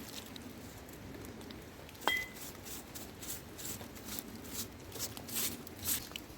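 A small hand brush swept in quick short strokes over a table, with one sharp clink of a glass bottle about two seconds in that rings briefly.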